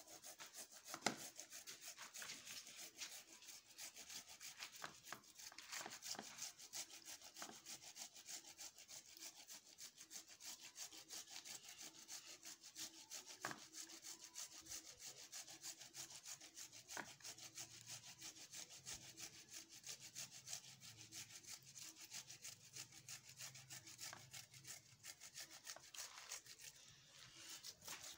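Tomato being grated on a hand grater: faint, fast, steady strokes that repeat evenly.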